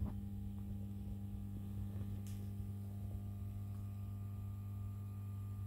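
Steady low electrical mains hum with fainter higher overtones, from the powered-on pinball machine's electrics.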